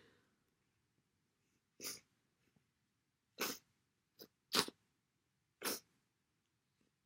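About five short, quiet nasal sniffs spread unevenly over several seconds, from a person with a runny nose.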